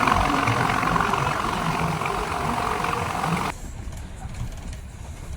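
A vehicle's engine running steadily, cutting off abruptly about three and a half seconds in, leaving a much quieter background.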